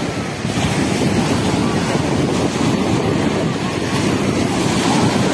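Small sea waves breaking and washing up a sandy shore in a steady rush of surf, with wind rumbling on the microphone.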